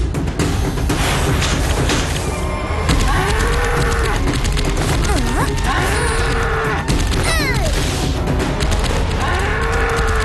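Cartoon bull bellowing three times, each call rising and falling in pitch, over a dense, steady rumbling background. A brief falling glide of sound comes about seven seconds in.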